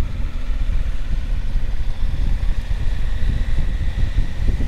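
Motorcycle under way at road speed: a steady, rough rumble of engine, road and wind noise buffeting a helmet-mounted microphone, with a faint steady high whine coming in about two seconds in.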